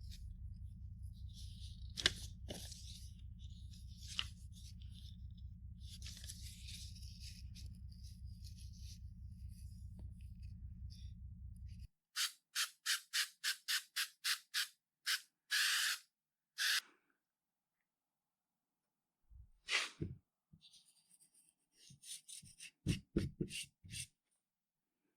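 Workshop hand-work: a steady low hum with rustling and a sharp click for about the first half. This cuts off abruptly into a run of about a dozen quick, evenly spaced scraping strokes, then a few more scrapes and knocks near the end.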